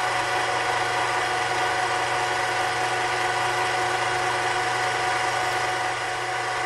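Mini metal lathe running at steady speed, its motor and drive whining with several steady tones, while a twist drill bores into the end of a soft brass rod spinning in the chuck.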